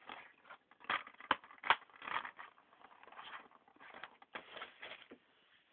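Plastic DVD cases handled close to the microphone: irregular rustling and clicking, with a few sharp clacks between about one and two seconds in.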